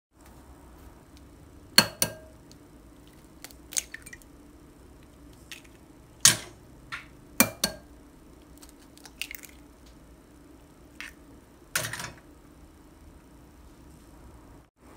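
Eggs cracked against the rim of a ceramic bowl: a handful of sharp clicks and knocks spread out, some coming in quick pairs.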